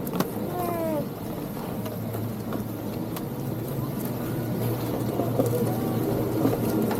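Ski lift machinery running: a steady low mechanical hum with a few sharp clicks, growing slightly louder toward the end.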